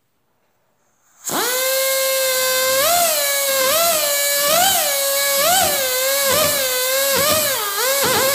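Handheld high-speed rotary tool starting up about a second in and whining steadily as it works the epoxy repair on the watercraft's hull, its pitch rising briefly and settling back again and again.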